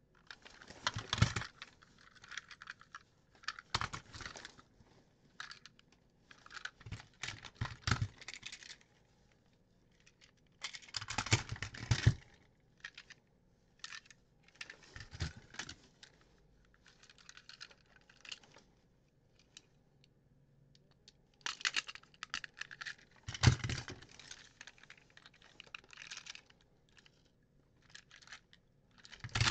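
Plastic toy train engines clicking and clattering against each other and against the hands as they are picked up and turned over. The clicks come in irregular clusters with quiet gaps between them, loudest about a second in, around twelve seconds and around twenty-three seconds.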